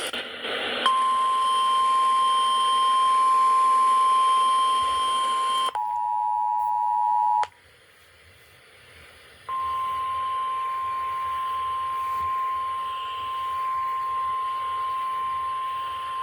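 Emergency Alert System attention tones over the radio. A steady single tone of about 1 kHz plays over a hiss for about five seconds. It switches to the two-tone EAS attention signal for about two seconds and stops. After a short pause the single tone starts again and holds.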